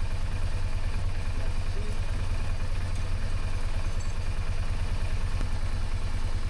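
BMW R1200GS boxer twin engine running steadily at idle, with its idle actuators switched off by a diagnostic tool for throttle body synchronisation.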